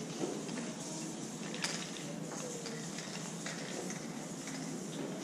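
Aerosol spray paint cans hissing in short, broken bursts as a wall is filled in, over steady street noise, with a sharp click about one and a half seconds in.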